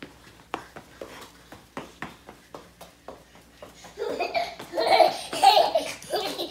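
A toddler laughing hard in loud bursts, starting about four seconds in. Before that, a run of light taps, a few a second, on a hard floor.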